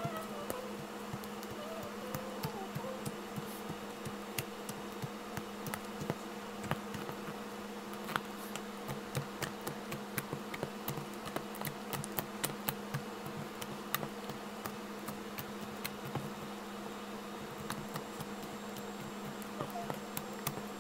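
Hands squishing and poking a white slime with beads mixed in, making many small clicks and pops, thickest through the middle, over a steady low hum.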